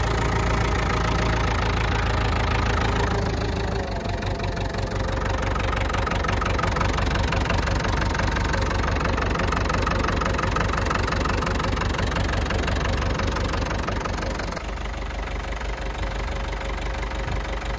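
Ford 5600 tractor's three-cylinder diesel engine idling steadily just after a cold start on starting fluid.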